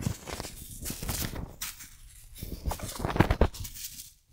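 Plastic bubble wrap crinkling and rustling as it is pulled apart and unwound by hand, with a denser run of crackles near the end.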